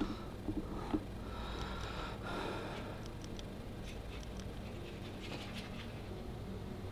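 A person breathing close to the microphone, with a few faint clicks.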